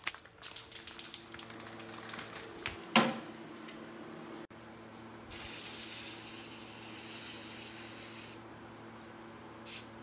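Aerosol spray can hissing in one steady burst of about three seconds, a little past halfway through, sprayed onto rusty bolts to get the rust off. Before it come light clicks and one sharp knock about three seconds in.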